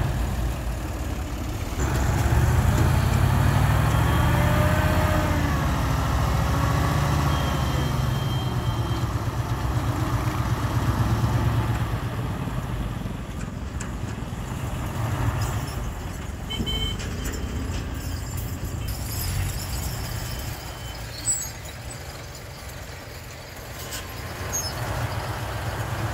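Dump truck's diesel engine revving under load to drive the hydraulic hoist as the loaded bed tips up to dump soil. The engine is loudest in the first ten seconds or so, then settles lower, with a short knock about 21 seconds in and the engine picking up again near the end.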